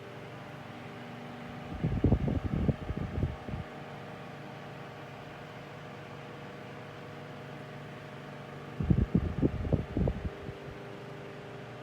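Westinghouse Pacemaker 10-inch table fan running with a steady motor hum. Twice, about two seconds in and again near nine seconds, gusts of its air stream buffet the microphone with a loud, low rumble.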